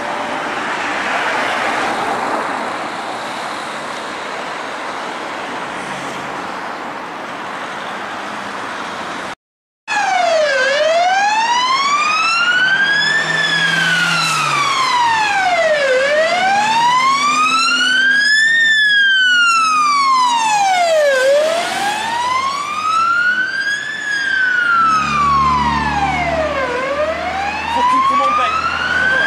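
Traffic and road noise for the first several seconds. After a brief gap, a fire engine's siren sounds in a slow wail, rising and falling about every five seconds, over engine rumble.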